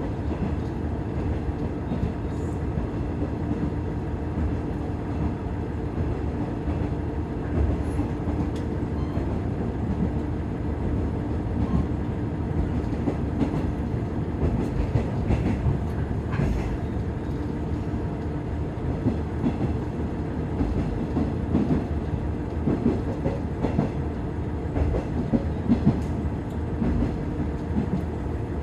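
Iiyama Line diesel railcar running along the track: a steady low rumble with a constant hum, and scattered wheel clicks over rail joints.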